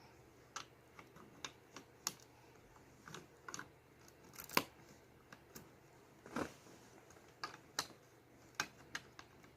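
Plastic Lego bricks clicking and knocking as they are handled and pressed together: irregular single clicks, roughly one or two a second, the loudest about halfway through.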